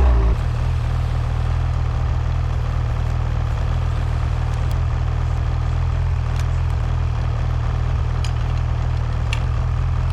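Ski-Doo MXZ 800 snowmobile's two-stroke twin engine idling steadily, with a few light clicks over it.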